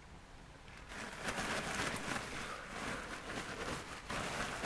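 Down sleeping bag's shell fabric rustling and crinkling as it is gathered up and bunched by hand, starting about a second in.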